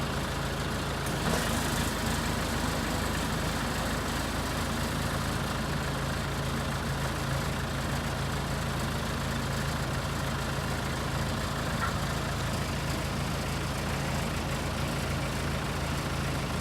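Backhoe engine idling steadily, with a brief knock a little over a second in.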